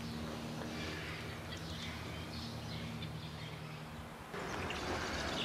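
Outdoor ambience: faint bird chirps over a steady low hum. About four seconds in the hum drops away and a steady hiss takes over.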